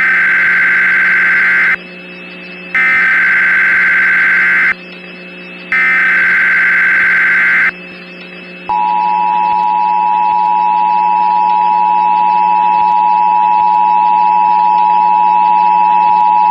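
Emergency Alert System tones: three bursts of SAME header data, a harsh digital warble about two seconds long each, separated by short gaps. Then the EAS two-tone attention signal, a steady dual-tone beep held for about eight seconds. A faint steady hum runs underneath.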